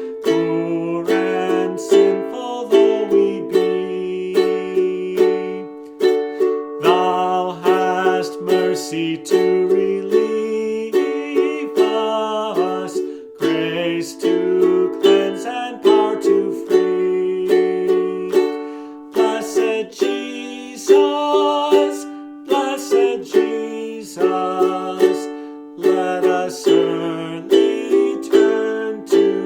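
Solo ukulele strumming a hymn tune, the chords changing every second or so, with no singing.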